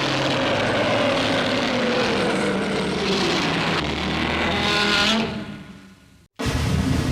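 Film sound effect: a loud, noisy rush with a slowly falling tone, fading out about five seconds in.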